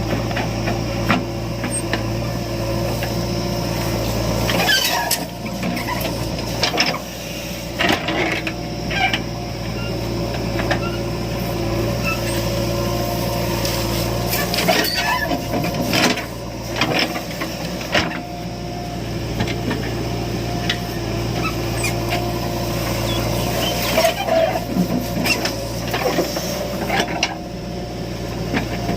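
Heavy diesel engine running steadily, with scattered knocks and clanks throughout.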